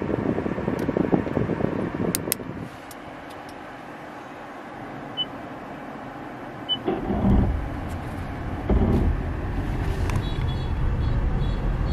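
Two short high beeps from the Toyota bZ4X's touchscreen as its automatic parking is set and started. Then, from outside, a steady low rumble starts as the electric SUV begins to park itself.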